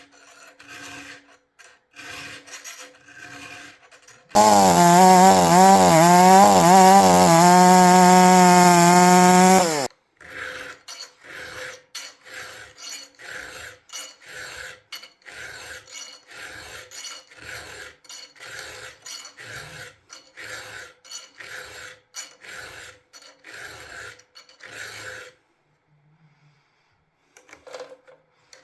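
A chainsaw chain being hand-sharpened with a file, in short rasping strokes. About four seconds in, the two-stroke chainsaw engine runs loudly at high revs for about five seconds, its pitch shifting as the throttle moves. Then the filing resumes in a steady rhythm of about one and a half strokes a second.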